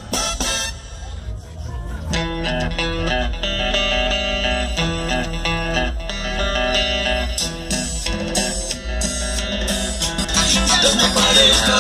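Music: plucked guitar notes over a strong, steady deep bass, a little softer for the first two seconds.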